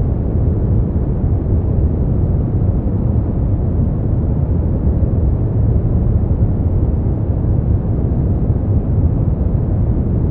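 Smoothed brown noise: a steady, deep, even hiss, heaviest at the low end with little treble, unchanging throughout.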